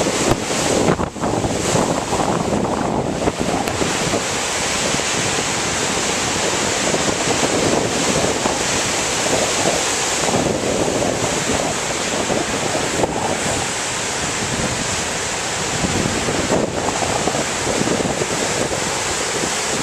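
Heavy storm surf breaking and churning against a rocky shore, a continuous loud rush of whitewater, with wind gusting on the microphone.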